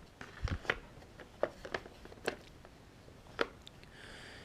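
Light clicks and knocks of a chainsaw being handled, about six short sharp clicks spread unevenly, with one duller knock about half a second in.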